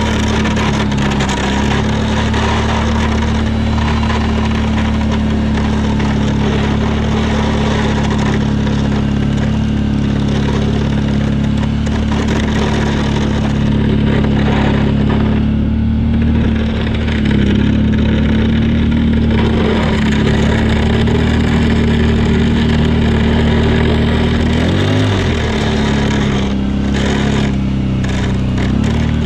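Kawasaki Brute Force 650i ATV's V-twin engine running steadily under load while plowing snow. Its note sags and recovers a few times, most clearly in the middle and again late on, over a continuous rushing noise.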